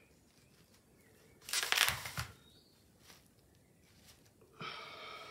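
A small canvas slid across a plastic-covered table and set down, a short scraping rustle with a couple of soft knocks about two seconds in. Near the end a brief hum-like voice sound.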